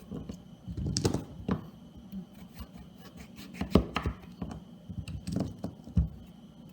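Kitchen knife cutting through a raw butternut squash: several sharp knocks with softer scraping between them, the loudest a little under four seconds in.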